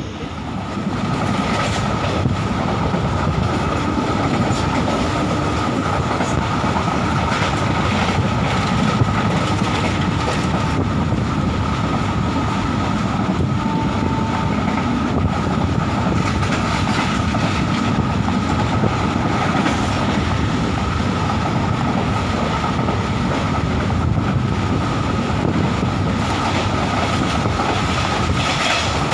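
Express passenger coaches running through a station at full line speed, heard from the coach doorway: a steady rushing rumble of wheels on the track, with a scatter of clicks and a steady hum over it.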